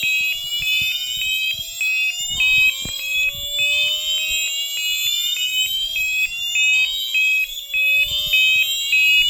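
Fire alarm sounding off the bell circuit of a 1989 Moose Z900 alarm panel. A high tone is broken into rapid pulses of about four a second, with lower slow rising sweeps repeating every few seconds.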